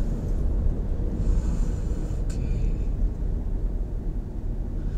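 Steady low rumble of road and tyre noise and the Nissan X-Trail's 2.5-litre four-cylinder engine near idle, heard inside the cabin as the SUV coasts down in speed. A single short click comes about two seconds in.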